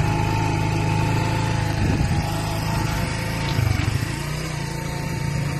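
Small motorcycle engine running steadily while being ridden, with two brief low thumps about two seconds in and again near four seconds in.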